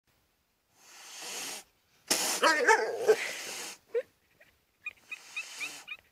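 An animal call with a wavering pitch, about two seconds in and lasting a second and a half, followed by a short blip and a few faint high chirps near the end.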